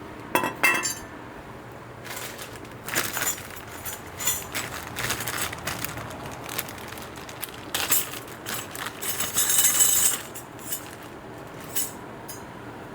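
Metal brake pads and their hardware being handled and fitted into a disc brake caliper bracket: irregular clinks, taps and scrapes of metal on metal, with a busier stretch of scraping near the end.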